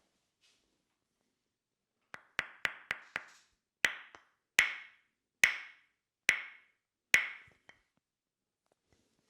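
Tok-Sen wooden mallet tapping on a wooden wedge: after a short quiet start, a quick run of five knocks, then five louder, evenly spaced knocks a little under a second apart, each ringing briefly.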